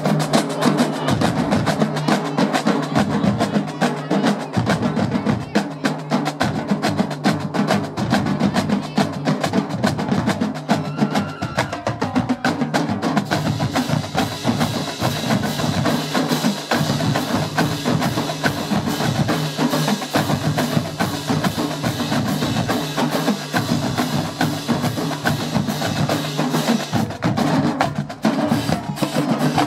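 Marching band drumline playing a fast, unbroken cadence on snare, tenor and bass drums, thick with sharp stick clicks.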